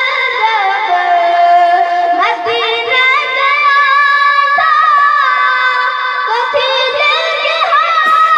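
A solo voice singing a naat, praise of the Prophet, in long held notes with gliding ornaments and no beat.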